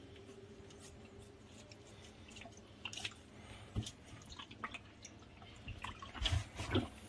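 Faint sloshing and dripping of water in a plastic basin as hands squeeze and rinse a raw octopus in it, with scattered small splashes and a few louder ones near the end.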